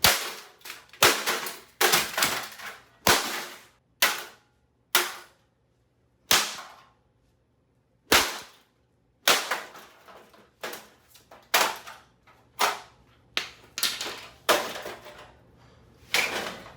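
Repeated blows smashing a Cooler Master Elite 130 mini-ITX computer case: a series of sharp, irregular strikes roughly a second apart, each dying away quickly, with a short pause in the middle.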